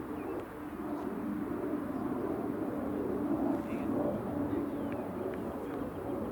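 Faint, indistinct voices over a steady outdoor background hum.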